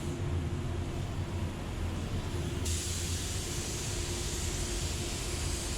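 Aerosol can of blending (fade-out) solvent sprayed in a steady hiss that starts about halfway through and keeps going, over a steady low hum.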